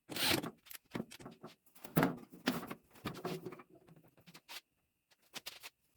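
Craftsman tool chest being handled and hung on wall screws: a run of knocks, clunks and rattles, loudest in the first half and thinning out toward the end.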